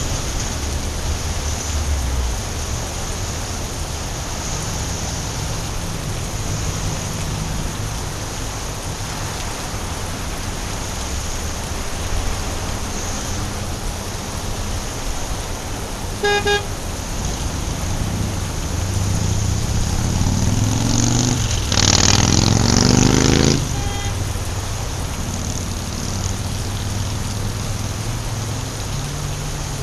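Steady rain with traffic on a wet city street. A short car horn toot sounds a little past halfway, then a vehicle swishes past on the wet road, building to the loudest moment and cutting off a few seconds later.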